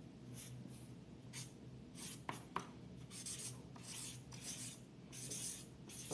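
Pen writing on paper: a run of short scratchy strokes, with two sharp clicks about two and a half seconds in.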